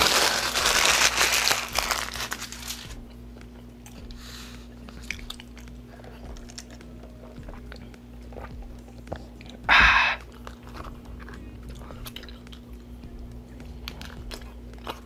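Paper burger wrapper crumpled in the hands for about three seconds, then close-up chewing and crunching of food with small mouth clicks. One brief loud rush of noise about ten seconds in.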